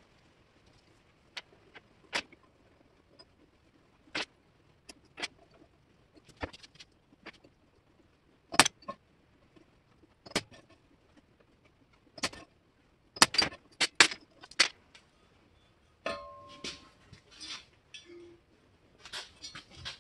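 Scattered sharp metallic clicks and taps, a punch marking hole positions on a steel Mini Cooper front wheel hub, with a quick run of taps a little past the middle and softer clatter near the end.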